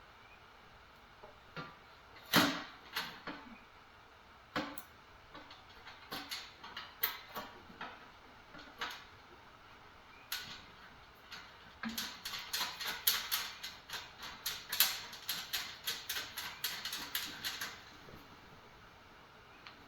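Hand tools and small metal parts being handled while a diesel heater's fuel pump is bolted back into place: scattered clicks and knocks, then, about twelve seconds in, a run of quick clicks at about five a second lasting some six seconds.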